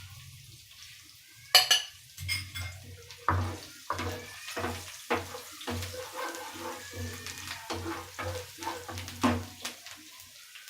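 A spoon stirring spices in ghee in a pan, knocking and scraping against the pan in irregular strokes. The loudest knock comes about a second and a half in.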